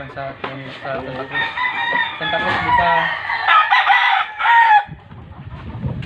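Several gamefowl roosters crowing and clucking over one another, their calls overlapping; the calling dies down about five seconds in.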